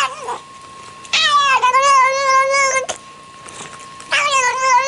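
A cat giving two long, drawn-out yowls, each rising at the start, dipping and then held steady. The second begins about four seconds in and runs on past the end. A faint steady high tone lies underneath.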